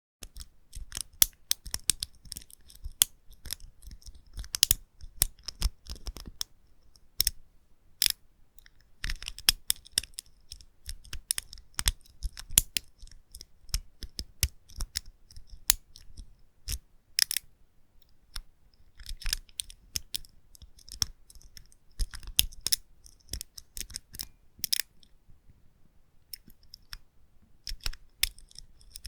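A lock being picked: small, sharp metallic clicks and short scrapes of the pick working in the lock, coming irregularly in clusters, with brief pauses about two-thirds of the way through and again near the end.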